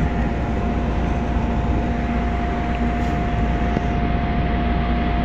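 Tugboat's diesel engines running steadily while the tug works a cargo ship on a towline: a constant loud drone with a steady high-pitched whine over it.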